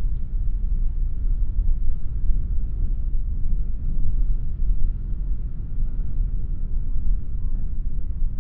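Wind buffeting the microphone: a steady low rumble that swells and dips with the gusts.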